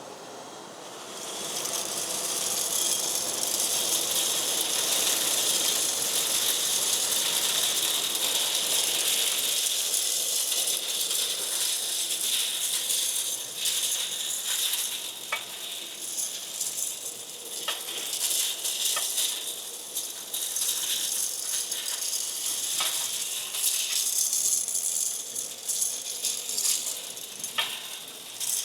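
Three-phase side-channel-blower industrial vacuum running, with a steady rush of air and metal chips rattling as they are sucked through the pickup tool and hose. It builds up over the first couple of seconds, and a few sharp clicks of larger chips striking stand out later.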